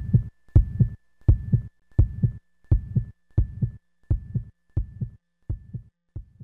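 A steady, slow double thump like a heartbeat, about ten beats at roughly one and a half a second, growing gradually fainter. A faint steady high tone sounds behind it.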